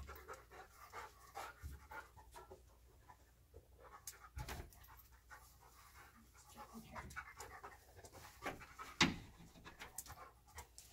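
A search dog panting steadily while it works a scent search, with scattered faint knocks; the loudest knock comes about nine seconds in.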